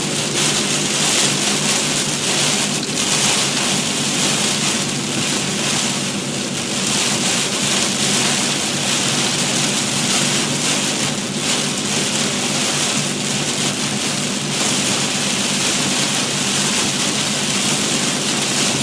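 Heavy rain pounding steadily on a moving car, with the low steady drone of the car running underneath.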